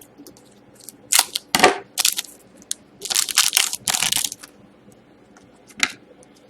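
Trading-card pack wrappers and packaging being crinkled and crushed by hand: a few short crackling bursts, then a longer crinkle of more than a second about three seconds in, and one sharp click near the end.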